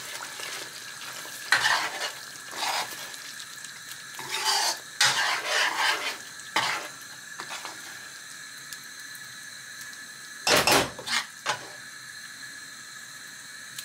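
Steel spoon scraping and clinking against a metal kadai as a thick chicken curry is stirred, in irregular strokes with the loudest a little over ten seconds in. A steady sizzle from the simmering curry runs underneath.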